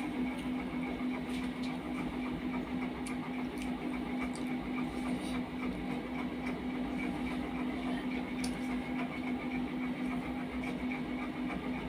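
A steady, fast-pulsing machine hum, with a few faint, scattered clicks.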